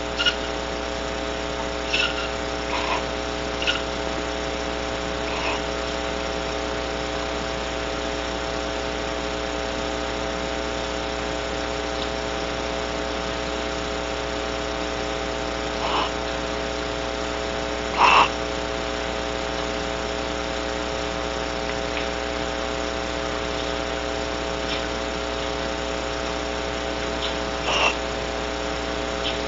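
A steady electrical buzz with several fixed pitches, the hum of the nest-box camera's microphone system. Over it come a handful of brief sounds from the barn owls in the box, the loudest about 18 seconds in and another near the end.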